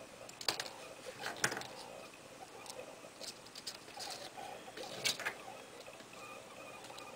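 A few sharp clicks and light rustles of a nail being pushed through a handmade paper knife handle; the loudest clicks come about half a second, a second and a half and five seconds in.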